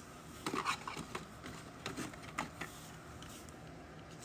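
Faint, scattered clicks and soft rustles of trading cards and their packaging being handled, thinning out over the last second or so.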